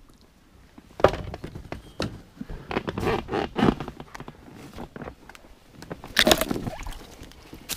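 Inflatable kayak bumping into a reedy bank and its hull scraping against dry reeds and stems as the paddler climbs out onto the shore. There is a knock about a second in, then crackling and scraping, and a louder burst of rustling near the end.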